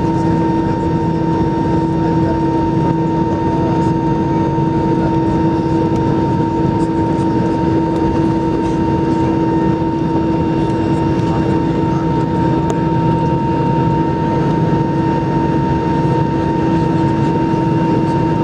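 Airbus A320-214's CFM56 jet engines running at idle thrust while taxiing, heard from inside the cabin: a steady rumble with two held tones, one low and one higher.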